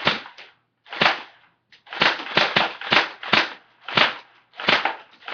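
Airsoft gun firing about ten sharp shots at uneven spacing, with a quick run of several about two seconds in.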